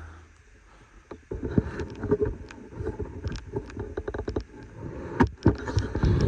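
Irregular bumps, knocks and scraping close to the microphone, starting about a second in and going on in a quick uneven run: handling noise as the camera is moved around.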